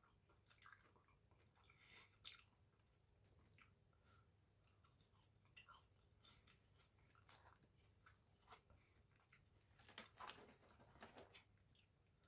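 Faint chewing and mouth sounds of someone eating close to the microphone: scattered soft smacks and crunches over near silence, coming more often near the end.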